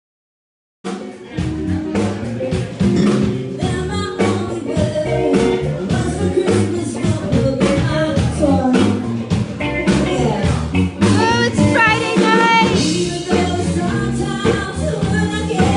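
A live band playing with a singer, starting suddenly under a second in after silence: full drums, bass and guitar with a steady beat.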